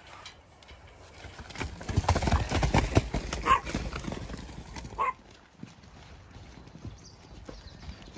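Horses galloping over soft, muddy turf, their hooves thudding in a quick run of hoofbeats that is loudest for a few seconds about two seconds in, then dies down to scattered steps.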